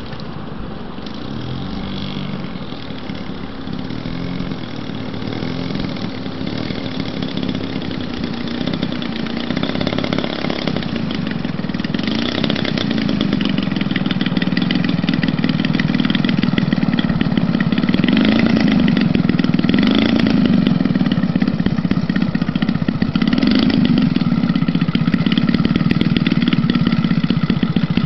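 Radio-controlled model aeroplane's engine running as the plane taxis, a steady buzz whose pitch wavers up and down with the throttle and that grows louder as the plane comes closer.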